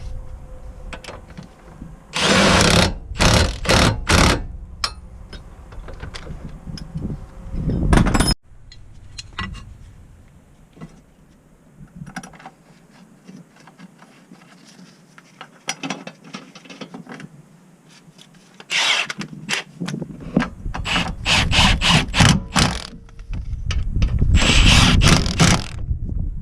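Cordless power tool run in a series of short bursts, several quick pulls at a time with pauses between.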